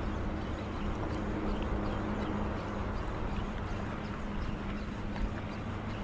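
Small waves lapping and slapping against a boat's hull, with scattered small splashes over a steady low hum.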